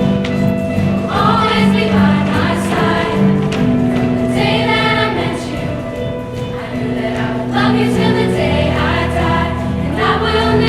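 Music: a choir singing, with sustained held notes underneath.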